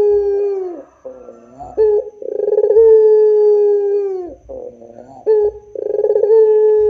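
White ringneck dove (Barbary dove, 'puter') cooing. A long coo trails off in a falling slur about a second in. A full long coo follows around the middle, and another begins near the end. Each is held on one steady pitch for about two seconds, with short quick notes between them.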